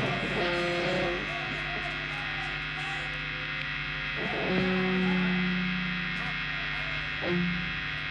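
Stage amplifiers humming and buzzing steadily between songs, with a few held low notes ringing from the band's instruments, the longest starting about four and a half seconds in.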